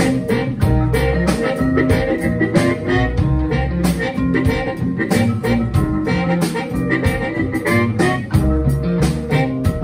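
Live blues band jamming: electric guitar, vibraphone, harmonica and upright bass over a steady drum and hand-percussion beat.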